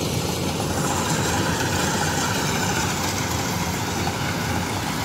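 Engines of tracked rice-harvest machinery running steadily, with no change in pitch or load.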